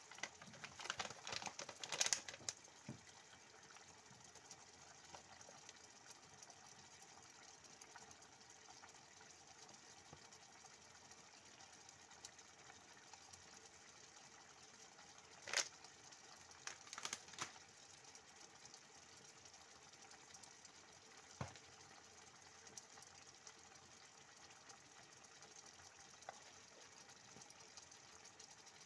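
Pan of chickpeas, potatoes and tomatoes in liquid simmering faintly, a soft steady hiss with a few sharp clicks in the first seconds and a handful more about halfway through.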